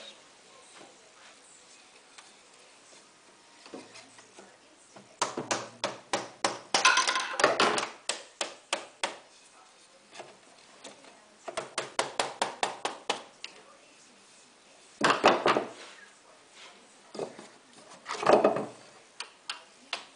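Hammer knocking on a wooden block held against a snowmobile's plastic fan housing to knock the housing loose: several runs of quick blows with pauses between.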